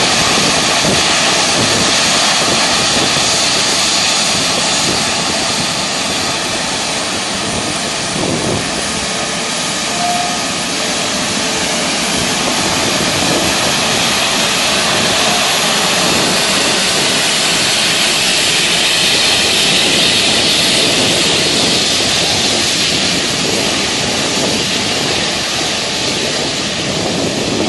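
Airbus A350-1000's Rolls-Royce Trent XWB turbofans at low, taxiing power: a steady jet whine and rush as the airliner rolls and turns on the runway, the high whine growing a little stronger past the middle.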